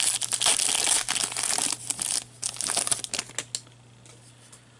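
A trading-card pack wrapper being torn open and crinkled by gloved hands: a dense run of crackling and tearing for about three and a half seconds, then it stops.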